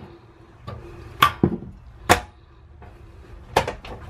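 Sharp metal clicks and knocks as a butane canister is worked in and out of a Camp Chef portable single-burner stove's fuel compartment and the compartment cover is shut. About six or seven irregular clicks, the loudest about a second and a quarter in and about two seconds in.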